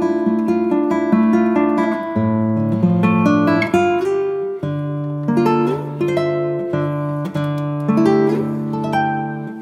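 Background music: acoustic guitar plucking a steady run of notes with regular strums.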